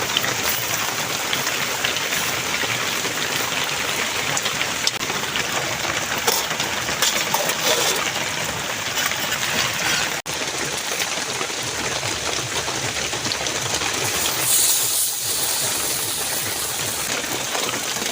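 Food sizzling and crackling in hot oil in a pan, a steady frying sound that cuts out for an instant about ten seconds in.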